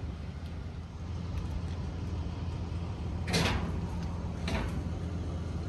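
A vehicle engine running with a steady low drone. Two sharp clunks come through it, one a little over three seconds in and another about a second later.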